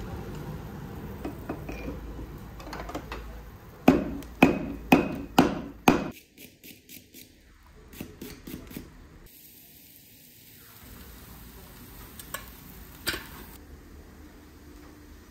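Hand hammer striking a glowing billet of fishing-hook Damascus steel on a steel anvil: five heavy ringing blows about half a second apart, then a few lighter taps, and two more single strikes near the end.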